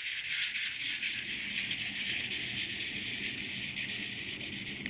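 A multitool saw blade rubbed rapidly back and forth by hand on sandpaper, a steady rasping hiss of quick short strokes that stops near the end. The blade is being sanded to smooth out light wear.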